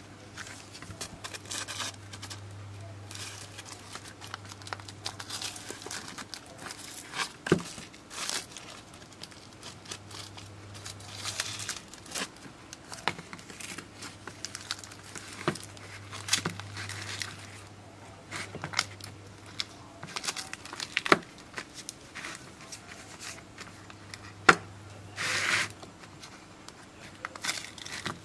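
Black adhesive wrapping film being peeled off a 3.7 V 4000 mAh lithium polymer battery pouch and unfolded by hand: crinkling and tearing, with scattered sharp clicks and crackles.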